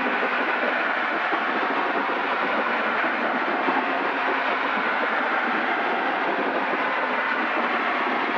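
Steady engine and wind drone in the cockpit of a Zenith CH750 Cruzer light aircraft in level cruise, an even hiss with little bass that holds at one level throughout.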